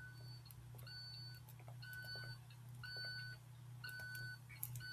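School bus warning alarm beeping about once a second, each beep a short two-tone tone, over a steady low hum, on a bus that has just caught fire.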